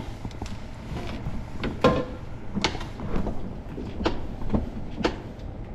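Hobie kayak's pedal drive clicking with the pedal strokes, about two sharp clicks a second from midway on. This is an unwanted noise from the drive that the owner says it is still making.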